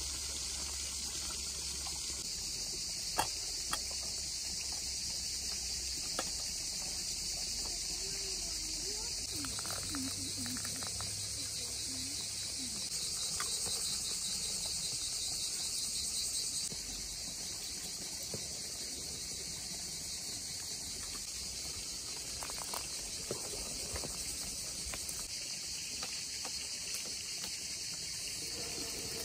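Steady high-pitched chirring of insects, a constant outdoor chorus, with a few soft clicks.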